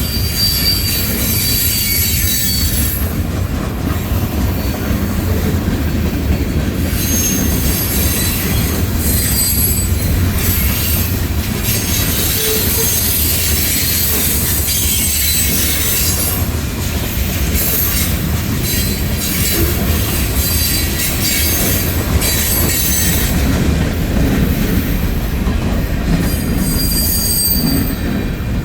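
Freight cars of a passing mixed freight train rolling by, their steel wheels rumbling steadily on the rails, with high-pitched wheel squeals coming and going.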